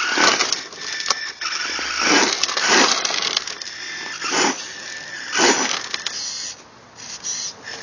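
Traxxas electric RC monster truck driving under load while towing a child on a toy motorbike. Its tyres crunch and scrabble over gritty asphalt in about five short bursts of noise as the throttle comes on and off.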